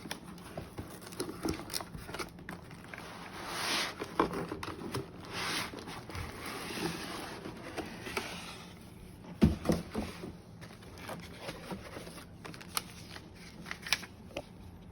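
Cardboard box and packaging being handled during an unboxing: rustling and sliding swishes with small clicks, and one sharp knock about nine and a half seconds in.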